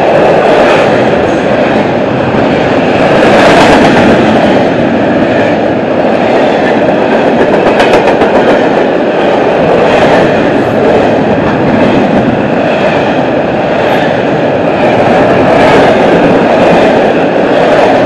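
Double-stack intermodal freight cars rolling past close by: a loud, steady rumble and rattle of steel wheels on the rails, with a few sharp clicks.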